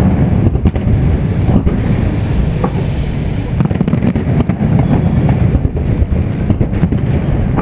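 Fireworks salute going off in quick succession: a continuous low rumble of booms with many sharp cracks scattered through it.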